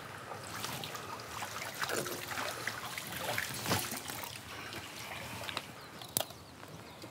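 Cooking oil trickling into a nonstick frying pan, with a few light knocks of handling. Near the end there is a sharp clink, like a spoon striking a stainless steel bowl while egg batter is stirred.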